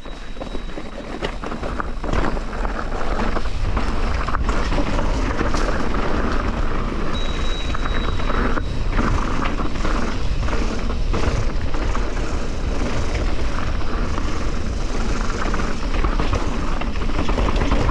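Mountain bike riding along a dirt trail: steady wind buffeting the camera microphone, with tyre noise and scattered rattles and knocks from the bike over rough ground.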